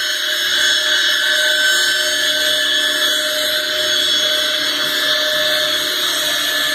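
Metal lathe turning a flanged metal wheel, the tool cutting metal with a steady hissing whine over the machine's running.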